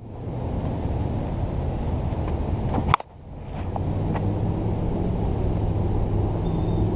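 Wind buffeting the microphone, a steady low rumble. About three seconds in there is one sharp crack of the softball bat hitting the ball, and the rumble dips briefly after it.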